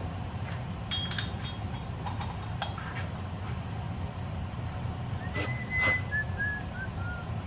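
Metal clinks and knocks of tools working a bolt-and-plate puller that draws a wheel hub into a new wheel bearing, the two loudest knocks a little past the middle, followed by a short high squeak that steps down in pitch. A steady low hum runs underneath.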